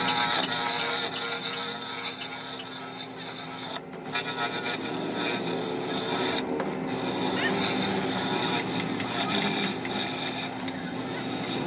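A tool scraping and rubbing against wood, continuous, with brief pauses about four and six and a half seconds in.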